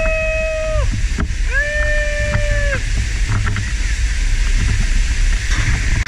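Steady roar of a waterfall pounding into its pool. Over the first three seconds, two long held high tones of about a second each sound over it.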